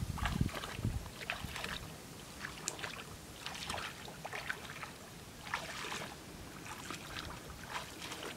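Footsteps wading through shallow water in a flooded rice paddy: irregular splashes and sloshes, one or two a second, with brief wind buffeting on the microphone at the start.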